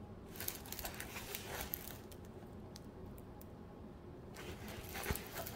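Faint rustling of a diamond painting canvas and its plastic cover film as the rolled canvas is handled, with a longer, louder rustle near the end.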